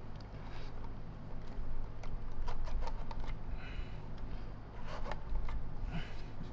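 Hard plastic parts of a Lindhaus HF6 vacuum's motor housing being handled and turned as the motor is lined up inside it: rubbing and scraping with a few light plastic clicks and knocks, the clearest about halfway through.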